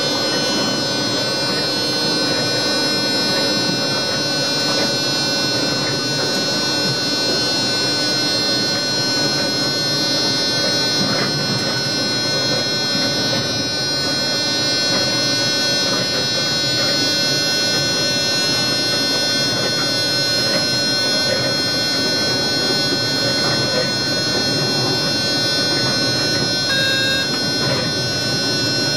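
Passenger train heard from inside the driver's cab while running: a steady rumble with several steady whining tones held unchanged over it.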